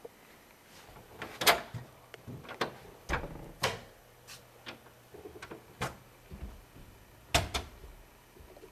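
A run of sharp, irregular knocks and clunks, like household doors or cupboards being handled, the loudest about a second and a half in and again near the end.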